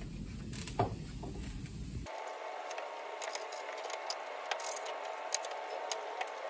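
Light clicks and knocks of items being handled and moved on an office desk as it is wiped down, over a steady hum. There is a short hiss about four and a half seconds in.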